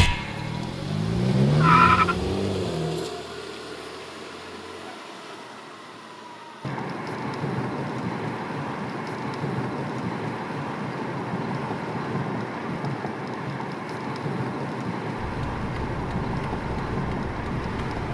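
A sharp thump, then a car engine revving up as the car pulls away, rising in pitch for about two seconds and fading. About six and a half seconds in, it cuts suddenly to steady engine and road noise heard from inside the moving car's cabin.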